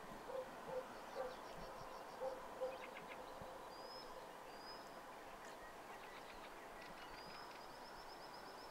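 Faint outdoor evening ambience with birds calling: a few short low calls in the first three seconds, then thin high whistles, and near the end a long trill of rapid falling notes.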